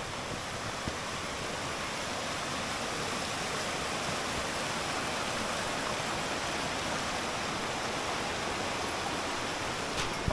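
Rushing mountain stream: a steady, even rush of water, with a sharp click near the end.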